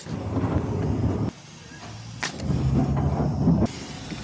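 Corded Hitachi screw gun with a collated screw strip driving screws into plywood, twice: each time a sharp click as it engages, then the motor running under load for a little over a second before cutting off.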